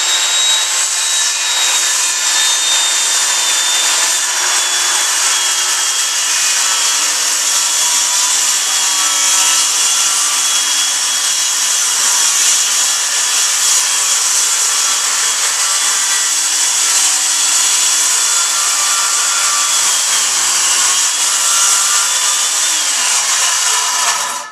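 Corded circular saw fitted with a framing blade set to 3/4-inch depth, ripping along the grain through an oak hardwood floor plank: a steady high whine with the rasp of the cut, held at even speed, then winding down with falling pitch near the end.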